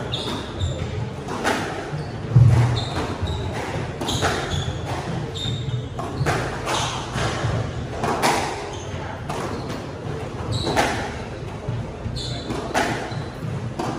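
Squash rally: the ball is struck by rackets and hits the walls about every one to two seconds, with sneakers squeaking and footfalls thudding on the wooden court floor, echoing in the enclosed court. The loudest is a heavy thud about two and a half seconds in.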